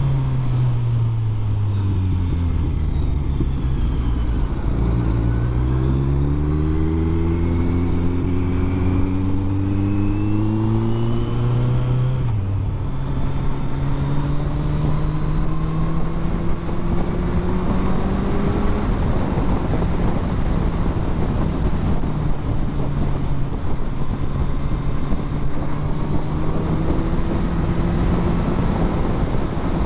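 Kawasaki Z900 SE inline-four motorcycle engine under way. Its pitch dips, then climbs steadily for several seconds and drops sharply at a gear change about twelve seconds in, then holds fairly steady. There is a constant rush of wind noise.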